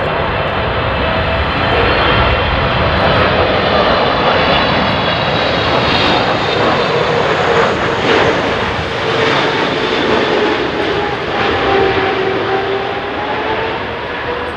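Boeing 777-300ER's twin GE90 turbofans on final approach, passing low: a loud, steady jet roar with whining fan tones that slowly drop in pitch.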